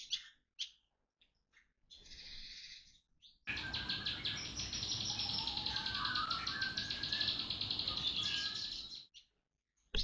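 Small songbirds in a mixed aviary chirping, with a few short calls at first. About three and a half seconds in, a dense, rapid trilling song with whistled notes begins, and it cuts off abruptly near the end.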